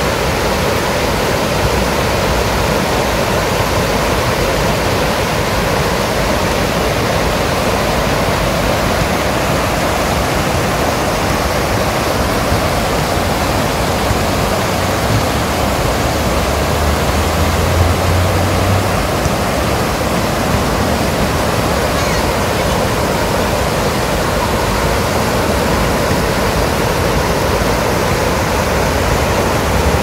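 Stream water rushing in white rapids over and between a line of concrete stepping stones: a steady rush of water.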